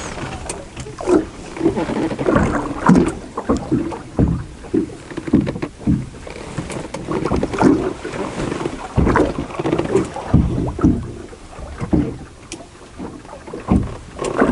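Gusty wind buffeting the microphone in irregular bursts, with water slapping against the side of a small boat.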